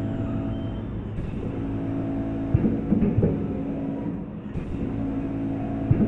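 Vertical packaging machine running: a steady motor hum, with a short cluster of clacks from each bagging cycle about every three and a half seconds, heard about three seconds in and again near the end.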